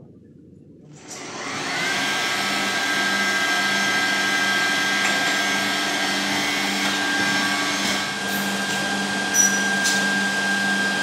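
Automatic edge banding machine starting up about a second in: its motors spin up to a steady whine and hum that holds, with a short sharp click near the end.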